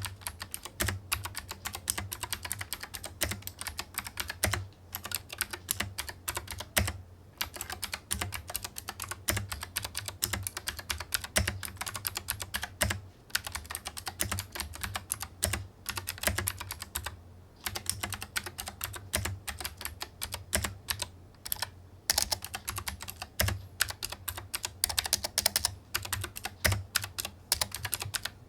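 Fast typing on a Yunzii KC84 (Keycool 84) 75% hot-swap mechanical keyboard: a dense run of key clacks with a few short pauses.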